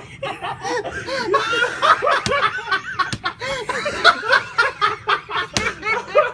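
Hearty laughter: a continuous run of short, rapidly repeated laugh pulses.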